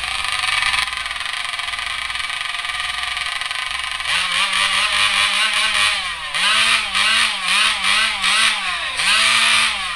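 Gasoline chainsaw running loud at a steady high speed, then from about four seconds in its pitch repeatedly dips and recovers, roughly twice a second, as the chain is pressed into the log and eased off; it stops at the end.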